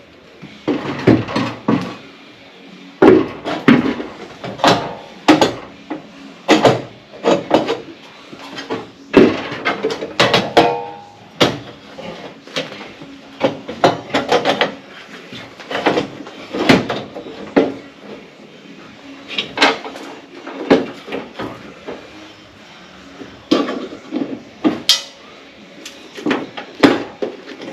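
Irregular clanks and knocks of replacement sheet-metal rocker and cab-corner panels being handled, clecoed and tapped into place, several sharp strikes a few seconds apart, some ringing briefly.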